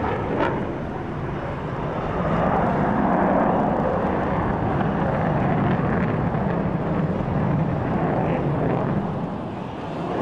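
Twin-turbofan F-15 fighter jet flying a banking turn overhead: a steady jet engine rumble that swells and eases slightly, dipping a little near the end.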